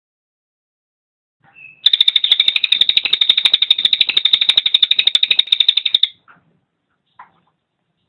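Cililin songbird giving a loud, rapid rattling call of quick repeated notes, about ten a second, lasting about four seconds. A single short note comes just before it and a few faint notes follow.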